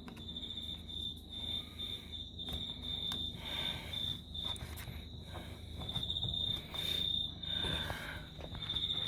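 Insects chirping in a high, thin pulsing trill that keeps stopping and starting, with a few faint clicks and rustles mixed in.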